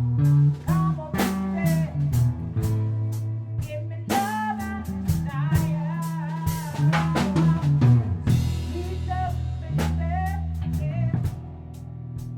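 Live rock band rehearsal: drum kit and bass guitar keep a groove under a lead electric guitar playing bent notes, with a cymbal wash about two-thirds of the way through.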